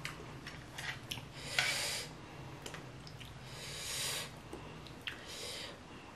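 Food being handled at close range to build a lettuce wrap: crisp lettuce leaves rustling and sauced noodles lifted with chopsticks, giving three short rustles and scattered small clicks.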